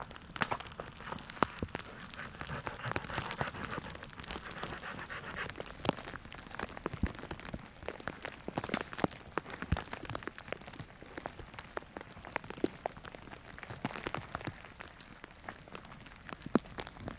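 Wet snow and meltwater drips pattering on the snow, the shelter and the branches: irregular light ticks over a soft steady hiss.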